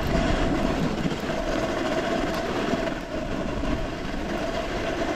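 A snowboard sliding over soft, wet snow: a steady rough hiss and rumble from the board, without break.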